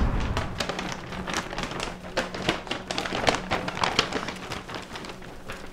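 A quick, irregular series of light taps and knocks, several a second.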